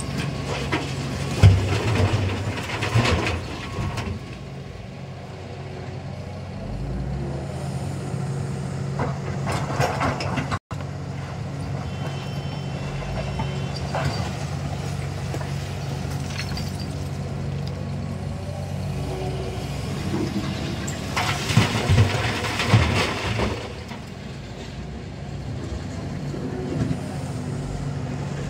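Heavy diesel engines running steadily while an excavator loads a tipper truck. Loud bursts of rattling clatter come three times, a few seconds in, around ten seconds in and past twenty seconds, as loads of material are dropped into the truck's body.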